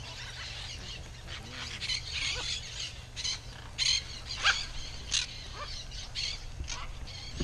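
Red-and-green macaws calling: a steady chatter of short, high calls, with a few louder sharp squawks in the middle.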